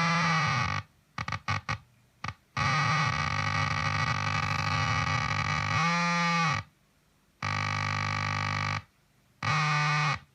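Electric guitar played through a Zvex Fuzz Factory fuzz pedal, giving a heavily fuzzed, synth-like tone. There are short sputtering stabs near the start, then long sustained notes that cut off abruptly, with a quick downward pitch bend about six seconds in.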